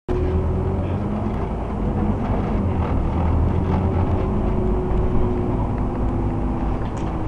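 Inside a moving Scania OmniCity bus: its diesel engine drones low and steady under road noise, with a few faint rattles.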